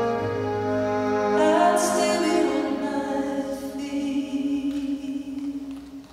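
Live band with cellos and piano holding the closing chords of a slow ballad, a singer's voice sustaining a note over them. The music fades away toward the end.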